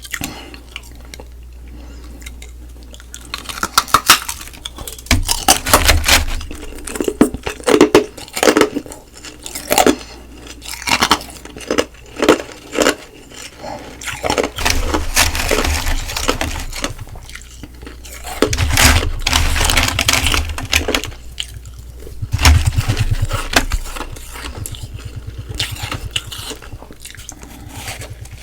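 Close-up crunching and chewing of frozen humidifier frost ice: dense runs of crisp crackling bites in clusters, with short pauses between mouthfuls.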